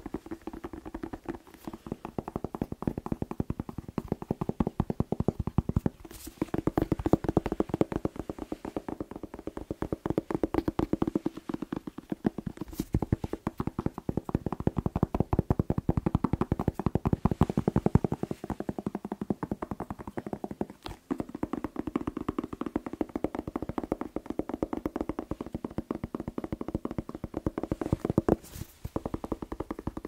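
Fingers tapping fast on a whole red bell pepper held right at the microphone: a rapid, continuous flurry of taps on the pepper's skin, broken by brief pauses a few times.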